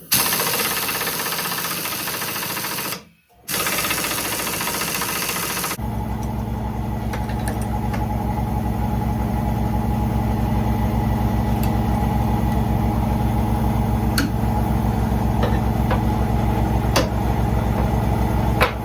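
Loud harsh noise in two bursts with a brief break, then a motor-driven machine starts about six seconds in and runs steadily with a fast, even pulsing beat.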